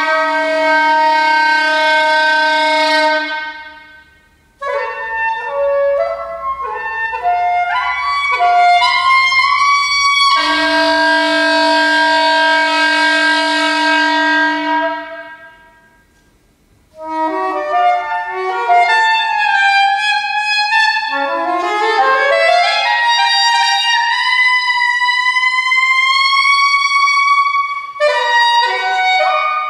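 Solo saxophone playing a contemporary concert piece. It holds two long notes that fade away into the hall's reverberation, and between them plays quick runs and sweeping pitch slides up and down.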